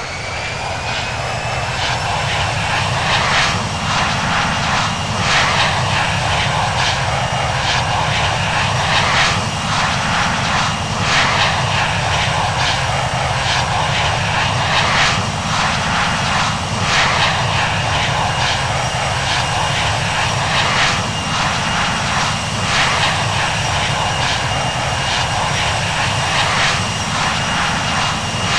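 Boeing 737-700's CFM56 turbofan engines spooling up to takeoff thrust. The whine finishes rising in pitch and grows louder over the first couple of seconds, then holds steady over a loud rushing roar that swells about every two seconds.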